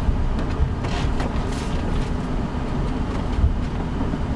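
Steady low rumble and hiss in an Airbus A330 cockpit on the ground, with a few faint clicks.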